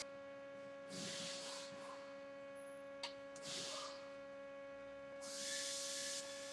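Faint steady hum with short bursts of hiss, three times, and one sharp click about three seconds in.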